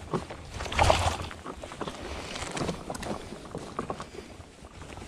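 Water splashing and lapping around a stand-up paddle board, with a louder splash about a second in and small knocks and rustles of gear being handled.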